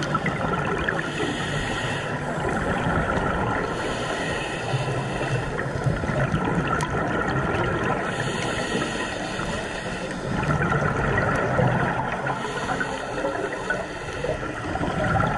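Scuba regulator breathing heard underwater: a hissing inhale alternating with the gurgling rush of exhaled bubbles, repeating every few seconds.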